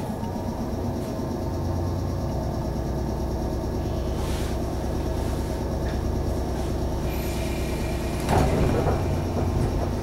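Steady low hum of a JR 119 series electric multiple unit standing at a station. About eight seconds in, a louder rush of noise starts as the train begins to move off.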